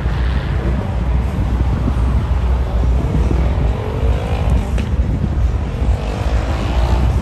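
Aerobatic propeller plane's engine and propeller running at high power, with the engine note rising steadily from about three seconds in. Wind rumbles on the microphone underneath.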